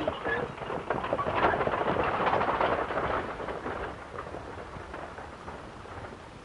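Stagecoach and its horse team moving off: a dense clatter of hooves and wheels that is loudest about two seconds in, then fades away.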